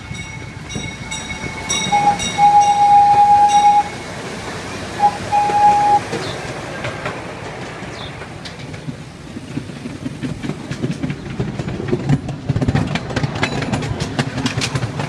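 Miniature ride-on train running along its track with a steady rumble, its horn sounding twice about two and five seconds in, each time a short toot then a longer one-pitched blast. Rapid clacking of the wheels over the rail joints grows louder in the last few seconds.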